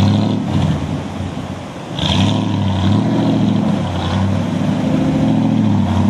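Off-road 4x4's engine revving in surges, easing off for a moment and picking up hard again about two seconds in, as it works over rocks.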